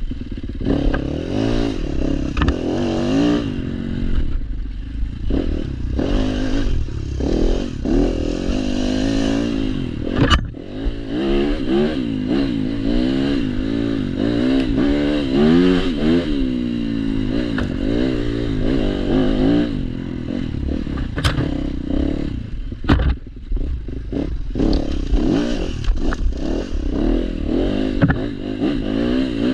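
Yamaha dirt bike engine revving up and down, its pitch rising and falling constantly as the rider works the throttle on a rough trail. A few sharp knocks come from the bike over the bumps.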